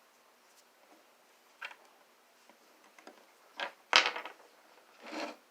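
Handling sounds from hands working on small objects: a few light clicks and knocks, then one sharp knock about four seconds in, the loudest, and a brief rustle near the end.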